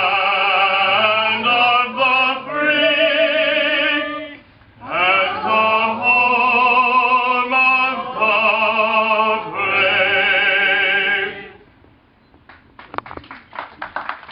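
A woman singing solo in an operatic style with strong vibrato, in long held phrases with one short breath pause. The song ends near the end, followed by scattered clapping.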